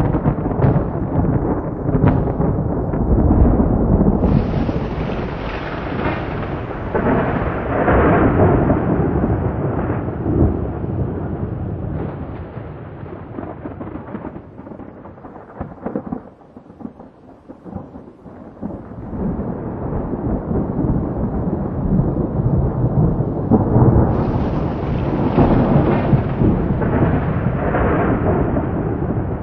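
Thunder rolling in long, heavy rumbles with rain falling, dying down to a lull about halfway through and then building again into another loud roll near the end.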